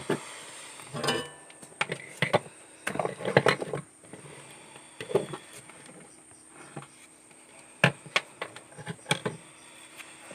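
Irregular small clicks, taps and knocks of hands handling a soldering iron and an opened digital multimeter during soldering work, with a denser cluster about three to four seconds in.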